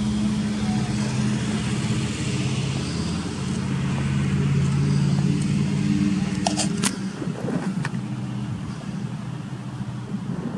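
Steady low drone of an engine running, with several fixed pitches held together; it drops somewhat after about seven seconds. A few sharp clicks come about six and a half seconds in.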